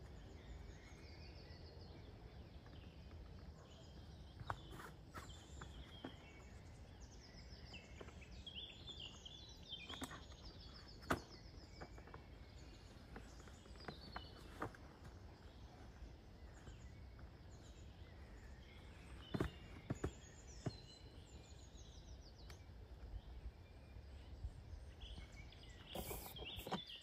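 Quiet outdoor park ambience: a low steady rumble with small birds chirping and twittering at intervals. A few sharp clicks and knocks stand out, the loudest about eleven seconds in.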